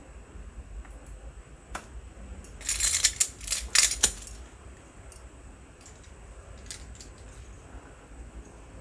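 Metal climbing hardware, carabiners and quickdraws, clinking and jangling in a burst of sharp clicks about three seconds in, with a few single clicks before and after.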